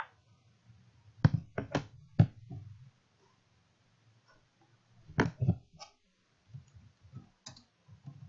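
Computer keyboard keys clicking as text is typed into a script, in short irregular runs of keystrokes, the loudest about a second in and again about five seconds in.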